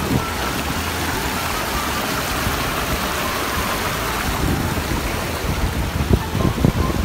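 A shallow, rocky stream rushing over stones in small cascades, a steady rush of water close to the microphone. There are a few short low bumps on the microphone near the end.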